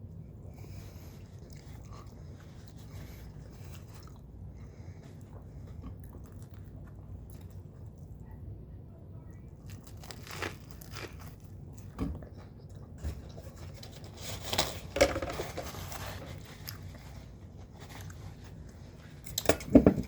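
A person chewing and biting into a toasted seafood po' boy sandwich, with wet mouth sounds and a few louder, crunchier bites about ten, fifteen and twenty seconds in, over a steady low hum.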